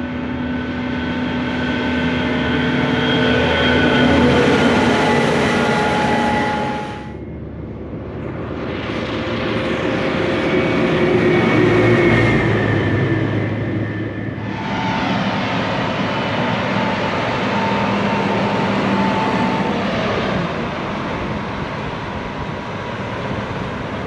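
Case IH 7250 combines and a Case IH tractor pulling a Brent grain cart driving past on a paved highway: a steady engine drone that swells as each machine nears and then fades. The sound changes abruptly about seven and about fourteen seconds in, where separate pass-bys are cut together.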